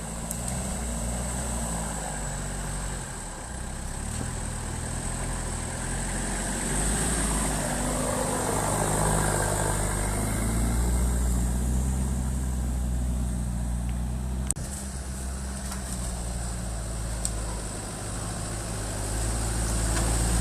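Off-road 4x4 engine running at low revs, a steady low rumble that swells a little mid-way and again near the end, with one sharp click about fourteen seconds in.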